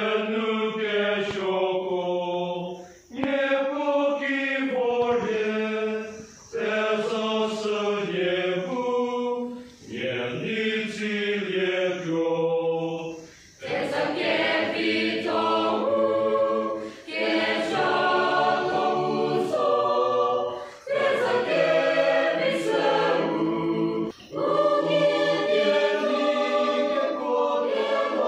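Church choir singing a hymn a cappella, in phrases of about three to four seconds with brief breaks between them.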